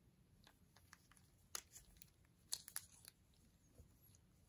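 Sharp plastic clicks and crinkling from a clear plastic tap case being opened and a spiral tap slid out of it in gloved hands. The loudest clicks come about a second and a half in and in a quick cluster about two and a half seconds in.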